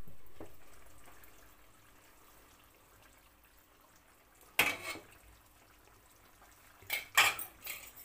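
Chicken masala cooking under a lid in a kadhai over a medium flame: a noise fading out over the first two seconds, then faint sizzling, with one short sharp burst about four and a half seconds in and a cluster of them around seven seconds.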